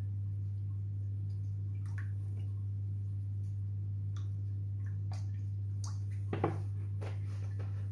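Milk trickling and dripping into a pan of milk as the pour thins out and stops, over a steady low hum. A sharp click comes a little past six seconds.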